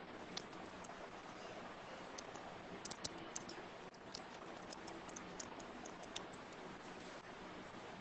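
Scattered light clicks and ticks over a steady, faint background hiss with a low hum. A small cluster of clicks comes about three seconds in, with more spread through the middle.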